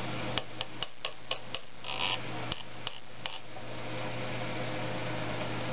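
A run of about ten light, sharp clicks over the first three seconds, with a brief hiss about two seconds in, from small metal parts and an oil can being handled while oiling the head-bolt threads of an engine block. A steady low hum runs underneath.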